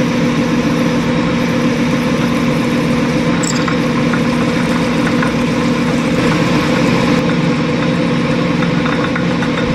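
Metal lathe running steadily with a twist drill in the tailstock chuck boring into the spinning metal rod. The motor and gearing give a constant hum under the scraping of the cut.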